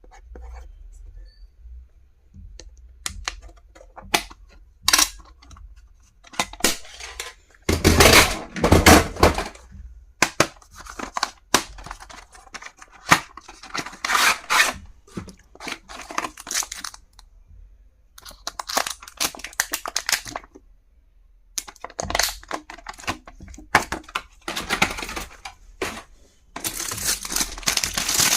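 Packaging being torn and crinkled open by hand, with scattered clicks and taps as items are handled. The noise comes in irregular bursts, with longer stretches of crinkling near the middle and at the end.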